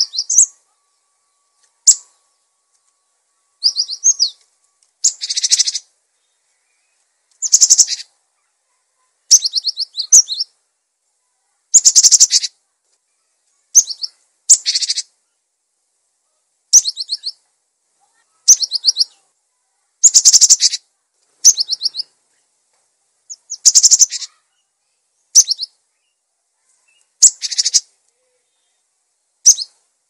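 Cinereous tit (gelatik batu) singing energetically: short, high-pitched phrases of fast repeated notes, one about every one and a half to two seconds.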